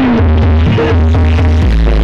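Loud electronic dance music with a heavy, pulsing bass beat, played at high volume through a large outdoor sound system.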